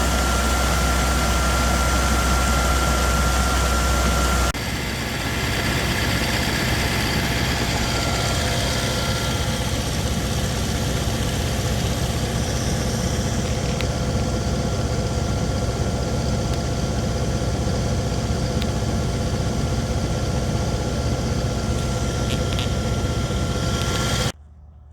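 A farm harvesting machine runs steadily at working speed, a constant low engine hum with a thin steady whine over it. The sound shifts abruptly about four and a half seconds in and cuts off just before the end.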